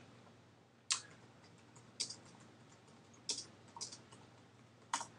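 Faint computer keyboard keystrokes as a search query is typed: about eight short, sharp clicks at irregular intervals, a couple of them in quick pairs.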